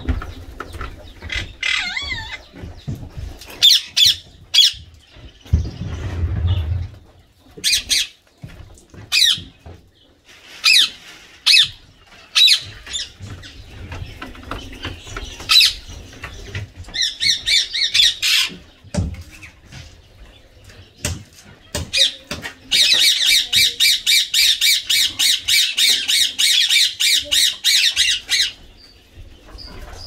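Indian ringneck parakeet squawking and chirping in short harsh calls, with some wing flapping. About 23 seconds in, a fast run of repeated calls, about seven a second, goes on for some five seconds.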